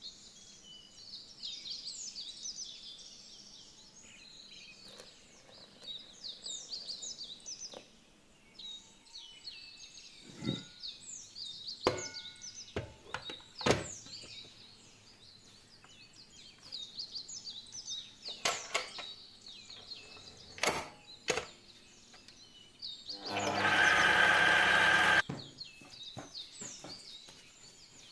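Small birds chirping and singing, with a few sharp clicks and knocks that fit a metal spoon against a stainless steel mixing bowl. Near the end comes a loud, even rushing noise lasting about two seconds.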